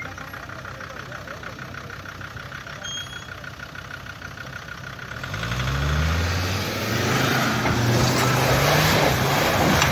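Land Rover Discovery engine idling, then revving hard about five seconds in and staying high as the truck climbs a snowy, muddy slope, with the rushing of its tyres churning through mud and snow.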